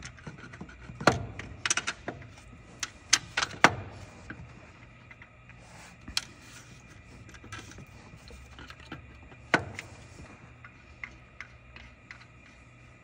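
Metal clinks and knocks of a replacement alternator being worked into its mount and its bolts fitted by hand. A cluster of sharp clicks comes in the first few seconds and one more about nine and a half seconds in, over a faint steady hum.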